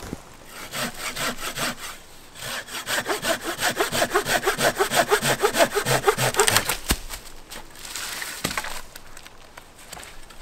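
Hand saw cutting through a dead fallen branch for firewood: quick, even back-and-forth strokes, loudest in the middle and weaker towards the end, with a sharp knock a few seconds before the end.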